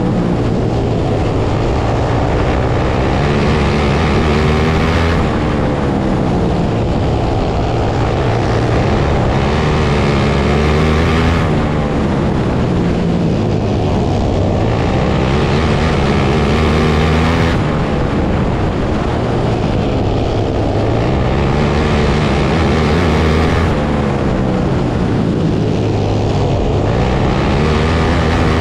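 Open 500 outlaw kart engine racing around a dirt oval. The revs climb and drop back about every six seconds, once for each lap, about five times.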